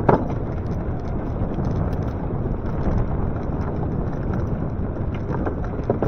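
Wind rumbling on the microphone with road noise while riding an e-bike, steady throughout, with a sharp knock right at the start and a few lighter knocks near the end.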